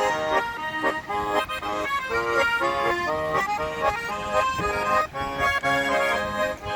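Garmon (Russian button accordion) playing a tune: quick short melody notes over held chords.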